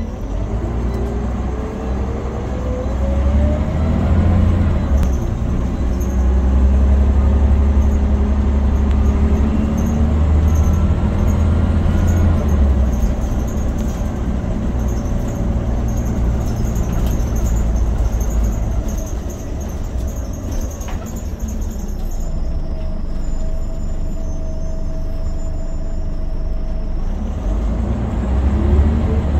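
Scania OmniCity bus heard from inside the passenger saloon: the engine and driveline run under load with a heavy low rumble and a whine that rises in pitch over the first few seconds. The bus then settles to a quieter, steadier hum, and a second rising whine starts near the end.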